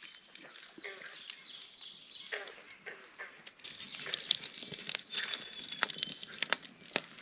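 Wood fire crackling, with many sharp pops scattered throughout and growing busier in the second half.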